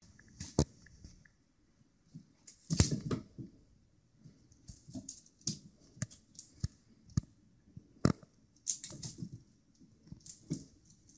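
Irregular clicks and soft thumps of a kitten pouncing and scrabbling on a hardwood floor after a feather wand toy, with two louder thumps about three and eight seconds in.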